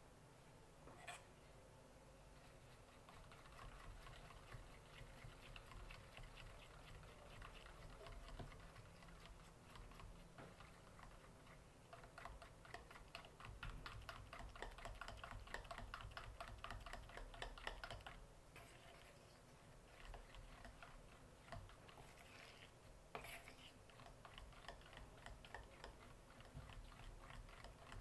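Metal fork stirring batter in a round metal cake pan, its tines clicking and scraping against the pan in a fast, even run of faint ticks. There is a short pause about two-thirds of the way through.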